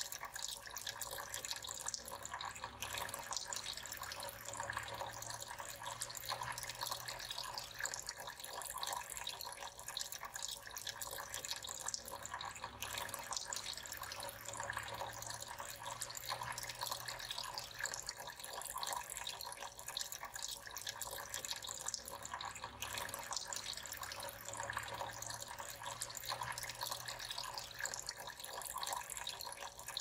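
Steady trickle and splash of water falling from small pipe spouts into the basins of a tiered tabletop cascade fountain fed by a small submersible pump.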